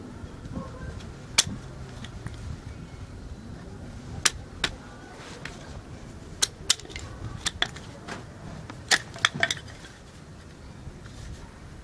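Wood campfire crackling: irregular sharp pops, several in quick clusters, over a low steady hiss.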